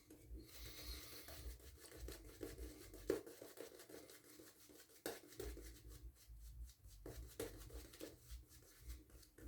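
Gillette Ball-End Tech safety razor scraping through lathered stubble: a faint, crackly rasp in short strokes, with a few sharper ticks.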